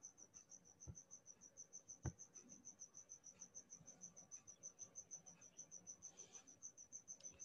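Faint, steady chirping of a cricket, about five or six chirps a second. Two mouse clicks come about one and two seconds in.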